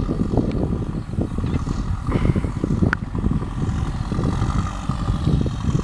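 A backhoe loader's engine running steadily at a distance, under an uneven low rumble of wind buffeting the microphone. One sharp click about three seconds in.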